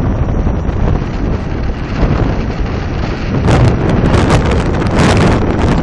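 Wind buffeting a phone's microphone: a steady low rumble, with sharper crackling gusts from about three and a half seconds in.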